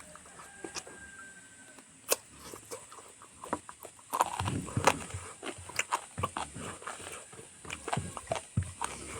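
Close-up chewing and lip-smacking of someone eating a pork dish: irregular wet clicks and smacks, busier and louder from about four seconds in.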